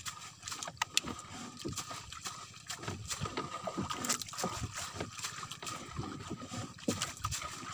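Sardine net being paid out by hand over the gunwale of a small wooden outrigger boat: the mesh rustles and scrapes along the rail, with many short irregular knocks and clicks.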